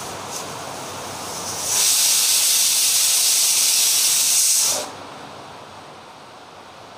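Stovetop pressure cooker whistling: the weight on the vent lifts and lets out a loud, hissing blast of steam for about three seconds, then drops and cuts it off, the sign that the cooker has come up to full pressure. A fainter steady hiss runs before and after it.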